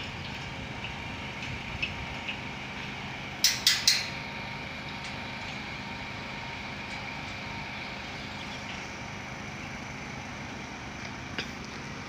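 Three quick metallic clanks of metal striking the steel palisade fence as it is being fitted, over a steady background hum.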